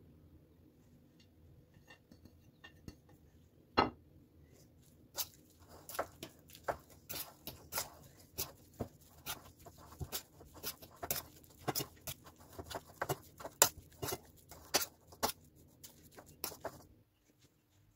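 Metal fork clinking and scraping against a stainless steel bowl while grated cheese is stirred into mashed potatoes: irregular taps, roughly two to three a second, for about twelve seconds. They are preceded by one louder knock about four seconds in.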